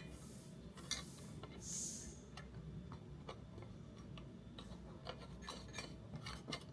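Faint, irregular small metallic clicks and ticks as nuts are spun by hand onto coach bolts, left loose rather than tightened. A short soft rush of noise about two seconds in.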